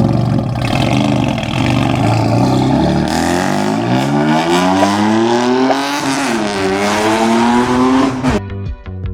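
Car engine revving loudly, its pitch sliding down, then climbing and dropping again several times, before cutting off suddenly near the end.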